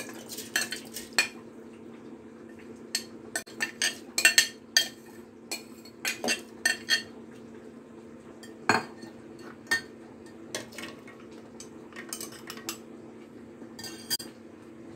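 Rice and almonds being added to an empty stainless steel mixer-grinder jar: a string of sharp clinks and knocks of bowls and a spoon against steel, over a steady low hum. The grinder motor is not running.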